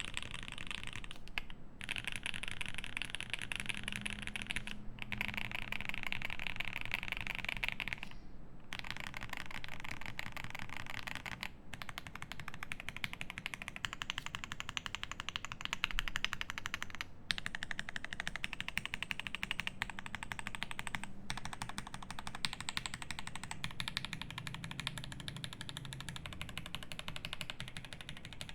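Fast, continuous typing on a Cyberboard mechanical keyboard with lubed C3 Fierce Girl switches in an aluminium plate and GMK keycaps: a dense run of key clacks with a few brief pauses.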